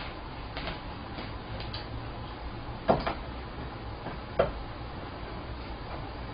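Kitchen knife tapping on a plastic cutting board while filleting a small fish: a few faint light taps, then two sharper knocks about a second and a half apart.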